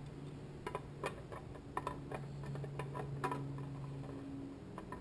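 Irregular light metallic clicks and clinks as a Toyota A340 transmission's second clutch housing is worked down into the case over the low-reverse clutch plates, about a dozen in all, a few in quick pairs.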